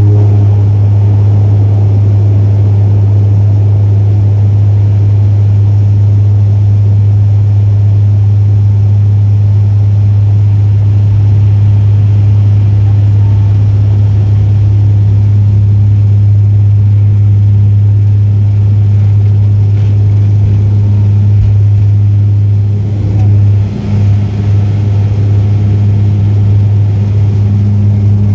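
Turboprop airliner's engines and propellers at takeoff power, heard from inside the cabin: a loud, steady low drone through the takeoff roll and climb-out, wavering briefly near the end.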